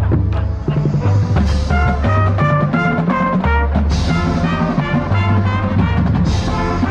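High school marching band playing: the brass section plays a moving melody over held low notes, with drums underneath.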